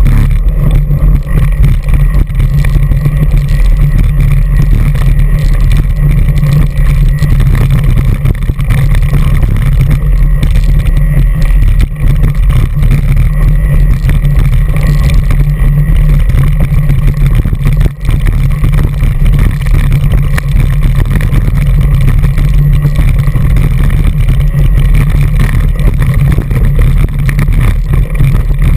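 Loud, steady low rumble from a handlebar-mounted GoPro Hero2 on an Orange Five mountain bike riding rough, rocky trail: wind buffeting the camera and trail vibration shaking through the bars and the camera housing.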